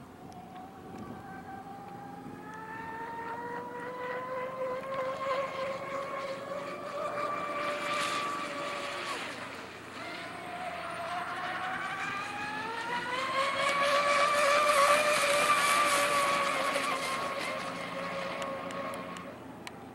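Twin brushless motors of a Pro Boat Zelos 36 RC catamaran on a 6S LiPo, whining at high speed, the pitch climbing steadily. About halfway the whine drops off briefly, then climbs again to its loudest, highest run before fading away near the end.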